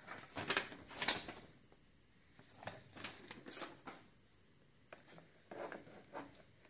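A folded paper leaflet and a cardboard box being handled: rustling and light scraping in three short spells.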